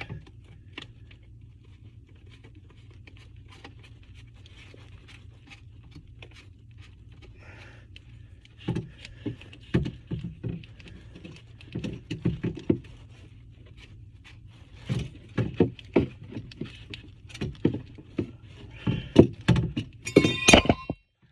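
Irregular clicks, knocks and light rattles of tub drain and overflow parts being handled and fitted by hand, sparse at first and getting busier about nine seconds in, with a louder clatter near the end.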